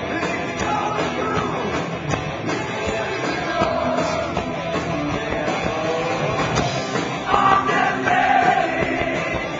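Live hard rock band playing: distorted electric guitar, drums and male lead vocals. The singing grows louder about three quarters of the way in.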